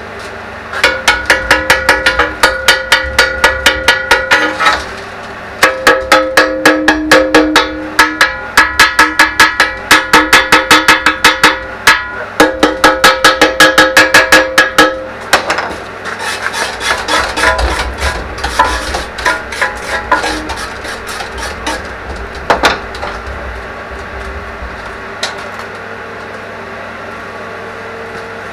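Runs of fast hammer blows on steel, about five a second, with the metal ringing after each strike. The runs stop and start four times, then give way to slower, irregular knocks.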